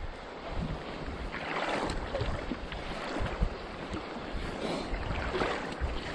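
Choppy sea water lapping and splashing close by, with wind on the microphone; the splashing swells twice, about a second and a half in and again near five seconds.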